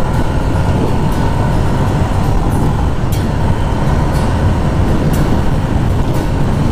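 Steady rush and rumble of wind on a lavalier mic with motorcycle riding noise, at around 80 km/h.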